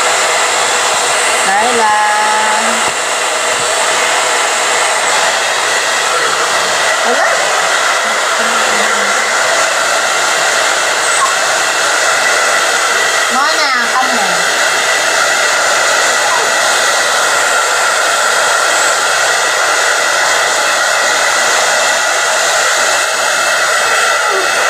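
Handheld hair dryer running steadily, a rush of air with a constant whine, blowing on a wet dog's coat after a bath.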